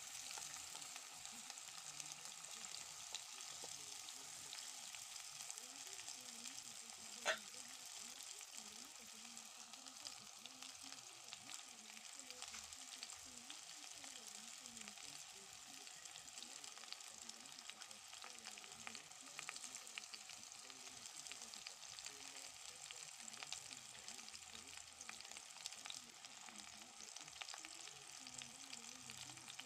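Faint, steady sizzling of potatoes and onions frying in oil in a metal pot, with fine crackles throughout. One sharp click about seven seconds in.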